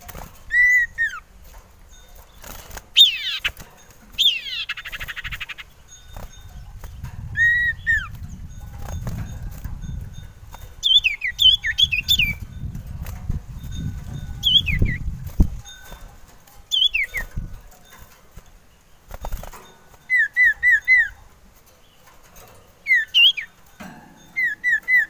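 Common iora (cipoh) calling: short clear whistles and whistles that slide downward, with quick runs of three or four notes near the end. A low rumble runs through the middle, and there are a few sharp knocks.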